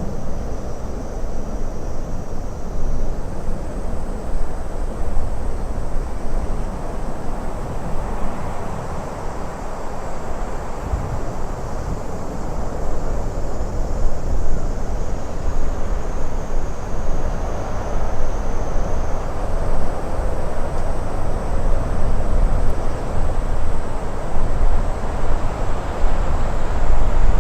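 Wind blowing steadily in a heavy low rush, swelling and easing in slow gusts.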